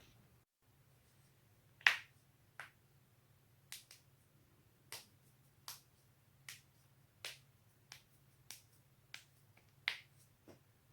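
A person's joints cracking: a run of about a dozen sharp pops at uneven intervals, the loudest about two seconds in and another near the end.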